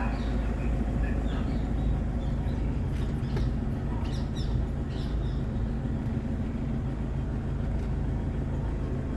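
Car being driven, a steady low engine and road rumble, with a few faint high chirps about halfway through.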